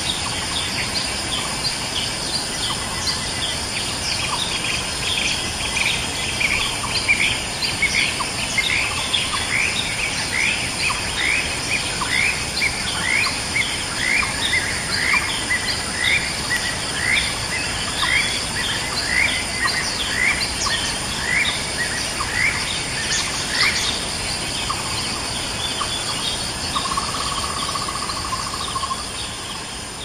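A bird calling a long, even series of short notes, about one and a half a second, over a steady high drone of insects.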